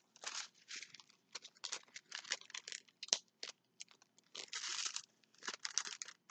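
Plastic packaging of a diamond painting kit crinkling and rustling in irregular bursts as it is handled and opened, with a longer rustle a little after the middle.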